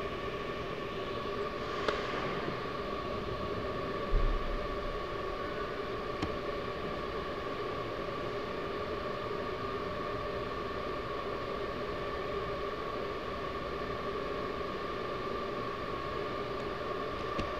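Steady machine hum with a constant whine in a large indoor hall, and a single low thump about four seconds in.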